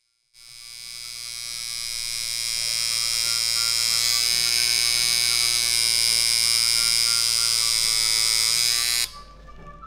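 Tattoo machine buzzing steadily as it lines a design into skin. The buzz fades in over the first few seconds and cuts off suddenly about a second before the end.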